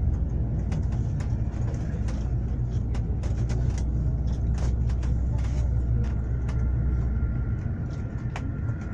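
Engine rumble and rattling heard inside a moving airport apron bus, with many small clicks and knocks. About seven and a half seconds in the deepest rumble drops away and a thin steady whine sets in as the bus slows.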